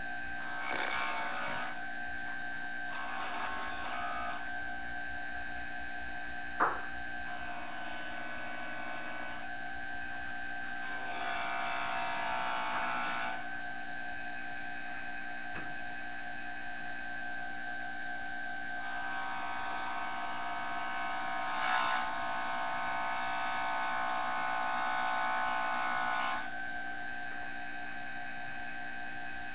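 Jooltool sharpening system's motor running with a steady high whine. Twice, for a couple of seconds about eleven seconds in and for about seven seconds from about nineteen seconds in, a rougher grinding sound joins it as a tool is sharpened on the spinning abrasive disc. A single sharp click about six and a half seconds in.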